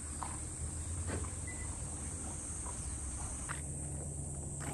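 A steady, high-pitched chorus of insects, with a few light footsteps in flip-flops on pavement about a second apart.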